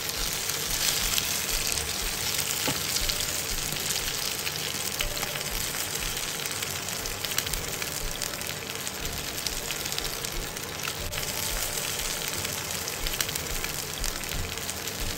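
Masala-coated basa fish steaks and curry leaves shallow-frying in hot oil on a tawa: a steady sizzle with scattered pops and crackles.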